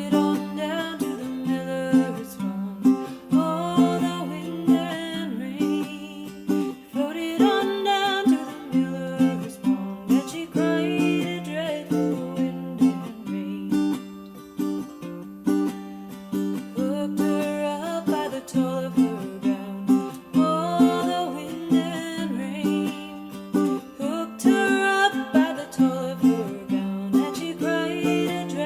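Folk music: a plucked string instrument picks a steady accompaniment, with a wavering melody line above it in phrases of a few seconds.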